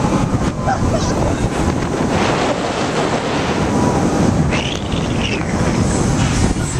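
Wind rushing over the microphone as it is swung through the air on a fairground ride: a loud, steady rush.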